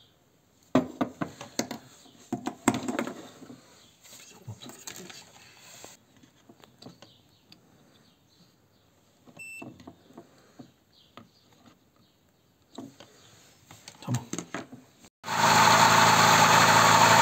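A scatter of clicks and knocks from handling parts, then, about 15 seconds in, a Fiat Tipo's petrol engine comes in running steadily and loud. It is running again on its resoldered Digiplex 2 ignition module.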